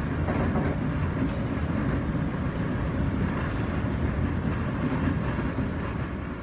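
Steady running noise of a moving passenger train heard from inside the carriage, mostly low, with wheels on the rails.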